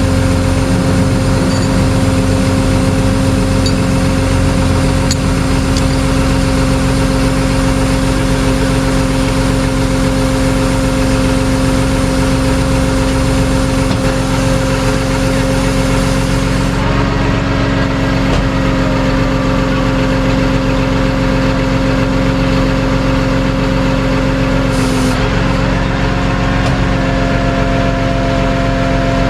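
A vehicle engine running at a constant speed, a steady drone with no revving.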